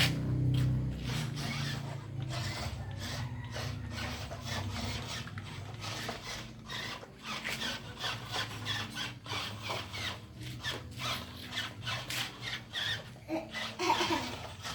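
Small RC excavator working in sand: irregular rasping scrapes of the bucket in the sand over a low steady hum.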